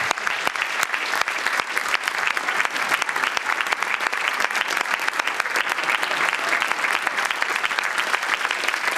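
A large audience applauding steadily, the dense clatter of many hands clapping without a break.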